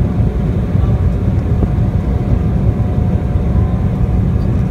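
Steady low rumble of engine and airflow noise inside a CRJ900 regional jet's cabin on approach to landing.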